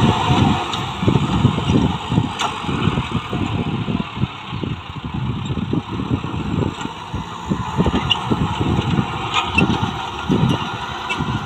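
Kubota MU5501 tractor's four-cylinder diesel engine running under steady load while it pulls a rotary tiller through the soil. Irregular low rumbles of wind on the microphone run underneath.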